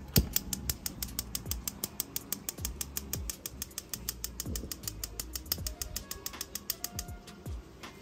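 Weber gas grill's electronic igniter clicking rapidly, about eight sparks a second, while the button is held, lighting the burner; the clicking stops about seven seconds in. Background music plays underneath.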